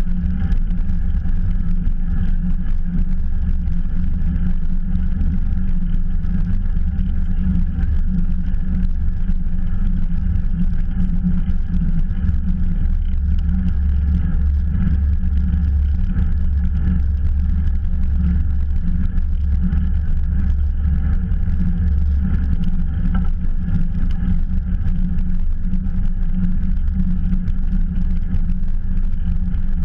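Bicycle riding at speed on an asphalt road: a steady rush of wind over the mounted camera's microphone with low tyre rumble, unbroken throughout.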